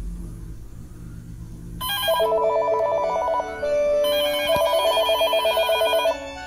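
Panasonic KX-TGL460 cordless phone ringing with a fast-warbling electronic ring that sounds like an old-style telephone ringer. There are two rings of about one and a half to two seconds each, the first starting a couple of seconds in, after a low hum.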